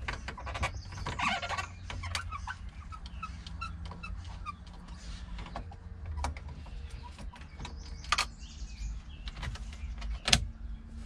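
Screwdriver backing out the screws that hold a factory car radio in the dashboard: irregular small scrapes, squeaks and clicks of the tool and screws against metal and plastic, with a sharp click near the end.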